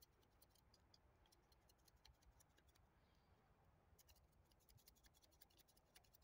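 Faint, irregular ticking and scraping of an Ontario M3 trench knife's carbon-steel blade shaving a green stick, pausing briefly about three seconds in.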